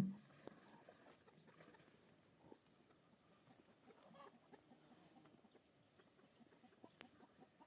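Near silence: a faint background with scattered soft ticks and small, faint animal-like calls.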